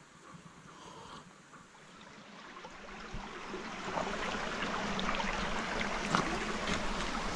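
Shallow stream running over stones: a steady rush of water with small splashes and trickles. It swells in over the first few seconds.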